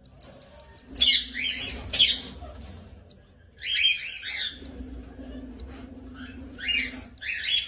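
Lovebirds giving short, shrill squawking calls, about five of them in pairs and singles, over a faint low hum.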